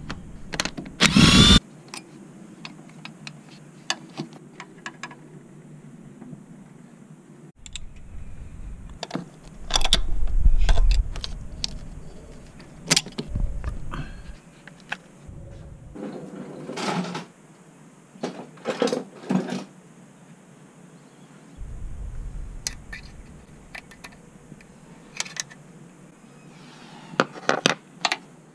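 Scattered metallic clicks, clanks and knocks of tools and parts being handled while working on the car's engine, with a few louder clanks about a second in, around the middle, and near the end.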